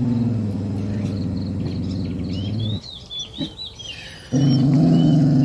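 A dog's low, sustained growl, which stops about three seconds in and starts again a second and a half later. Birds chirp in the pause.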